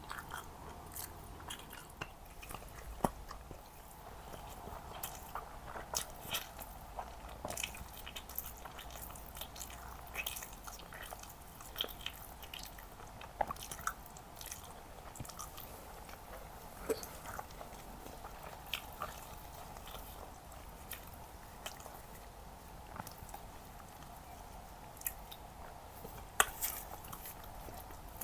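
Close-miked eating of mansaf, lamb and rice in yogurt sauce: mouth sounds of biting and chewing, with irregular wet smacks and sharp clicks every second or so. A faint steady hum runs underneath.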